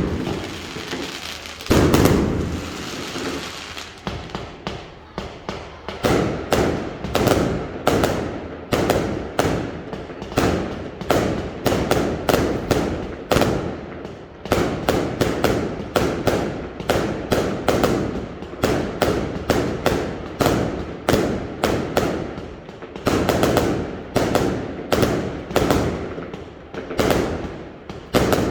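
Fireworks going off: a big bang about two seconds in, then a long run of sharp bangs about twice a second, each fading quickly into the next.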